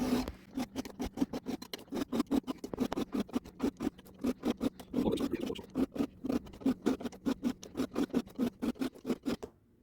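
Chainsaw chain being sharpened by hand with a round file: the file rasps across the cutter teeth in quick short strokes, about five a second.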